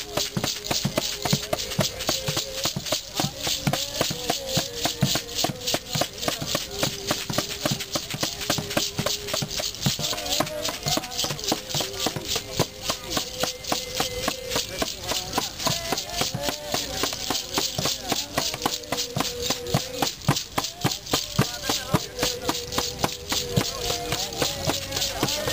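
Ceremonial hand drums beaten in a steady, fast rhythm while voices sing a slow chant with long held notes.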